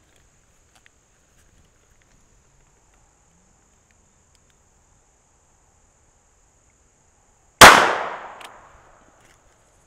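A single .22 Long Rifle shot from a Ruger LCR revolver firing Federal Punch ammunition: one sharp crack about three-quarters of the way in, with its echo dying away over about a second.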